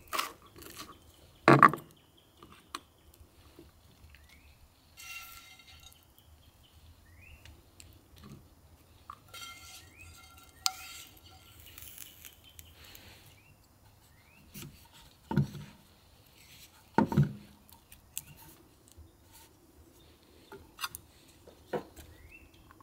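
Knife, spatula and spoon scraping and tapping on plates and toast as avocado and scrambled eggs are spread, with scattered light clicks and three sharp knocks of utensils against a plate, about one and a half seconds in and twice near the middle.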